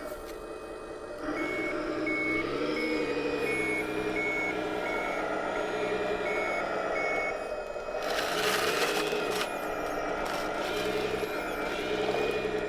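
An RC wheel loader's electronic sound module plays a reverse-warning beeper, about one and a half evenly spaced beeps a second from about a second in to about seven seconds, over a simulated diesel engine that rises and falls in pitch. About eight seconds in there is a short burst of noise.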